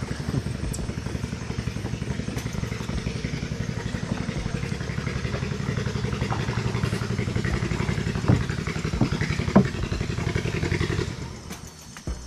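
A small boat's motor running with a rapid, even putter, with two sharp knocks about three-quarters of the way through; near the end the engine drops away.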